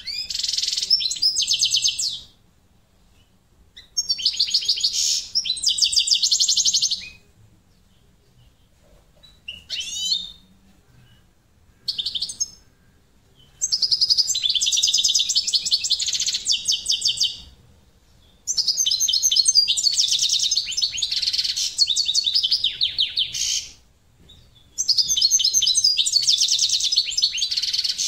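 European goldfinch singing. It sings in bouts of a few seconds of fast, high twittering and trills, with pauses of a second or two between them, and two short notes on their own near the middle.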